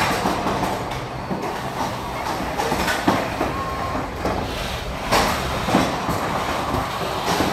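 Combat robots fighting in an enclosed arena: a steady rumble of robot drive motors and machinery, broken by several sharp bangs of robots hitting each other and the arena walls.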